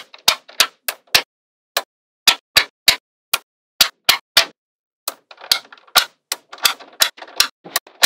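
Small magnetic balls snapping into place one after another on a flat sheet of magnetic balls: sharp separate clicks, about three a second, with a faint rattle between the clicks in the second half.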